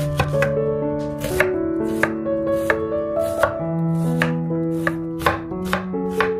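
Chef's knife slicing through an onion on an end-grain wooden cutting board, each cut ending in a sharp knock of the blade on the wood, about two or three a second, over background music.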